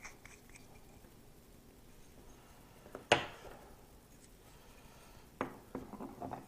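One sharp click about three seconds in, then a few light clicks and taps near the end: small metal and plastic parts of a knife sharpening kit being handled.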